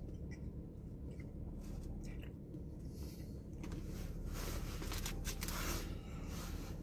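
A person chewing a mouthful of crispy fried chicken, with the chewing noises louder about four to six seconds in, over a steady low hum.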